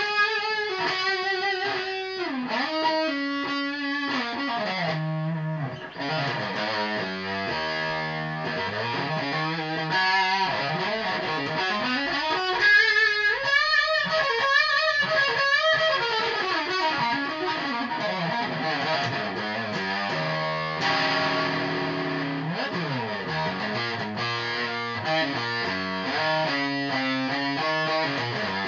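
Electric guitar played through an amp or effects, a tone test of melodic lead lines: sustained notes with pitch bends and vibrato, and quicker runs of single notes in between.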